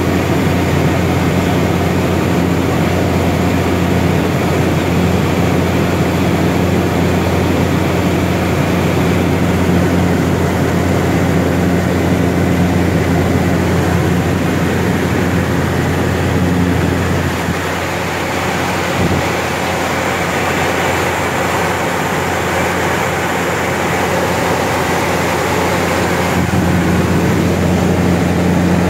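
The GE H80 turboprop engine and propeller of a DHC-3 Turbine Otter seaplane running steadily in flight, heard inside the cockpit as a loud, even drone with a low hum. About seventeen seconds in the low hum drops back slightly, then builds again near the end.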